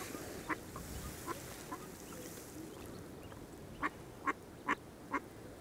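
A duck quacking: a few faint single quacks at first, then four louder quacks in quick succession near the end.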